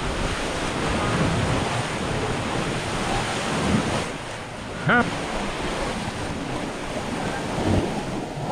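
Small sea waves washing onto a sandy beach, with wind buffeting the microphone. About halfway through, a person's voice gives one short call.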